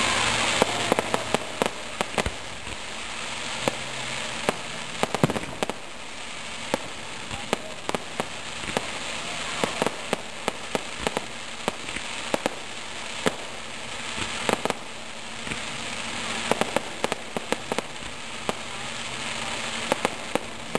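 Aerial fireworks bursting: a steady, irregular run of sharp pops and bangs, several a second at times, over a continuous hissing crackle from the crackling star shells.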